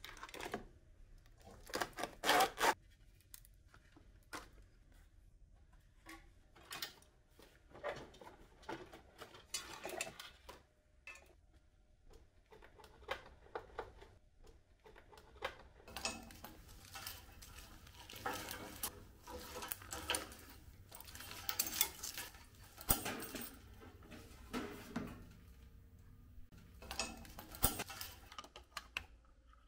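Irregular clicks, clinks and rustles of small metal and plastic parts and wiring being handled and pulled loose from a Land Rover Series 3 dashboard, busiest in the second half.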